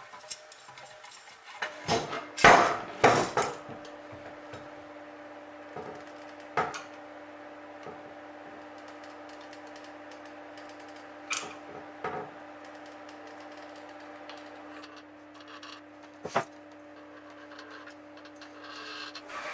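Several hard knocks and clatter, then a small machine starts a steady hum that runs on, broken by a few single taps.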